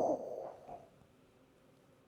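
The tail of a man's cough, fading out within the first second.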